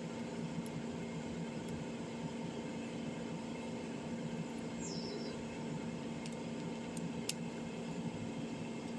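Steady low electrical hum and hiss, with a few faint sharp clicks from a small screwdriver fastening screws into the phone's frame.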